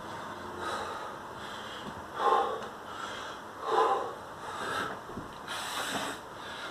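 A man breathing hard from exertion, a series of short, forceful breaths about once a second, the two loudest about two and four seconds in.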